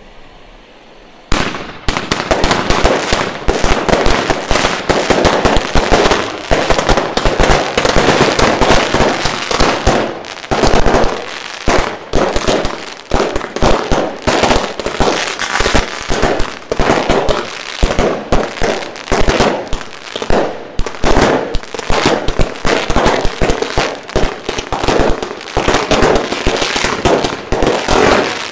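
Fireworks going off in a dense, rapid run of sharp bangs and crackling. It starts abruptly about a second in and keeps up without a break.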